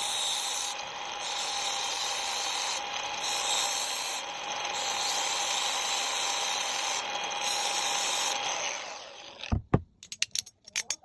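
A power tool running steadily, winding down about nine seconds in, followed by two heavy knocks and a quick run of sharp clicks.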